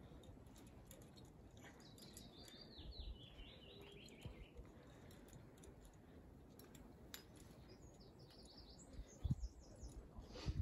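A small songbird singing two short phrases of quick repeated notes, the first stepping down in pitch and the second pitched higher. Two brief low thumps near the end.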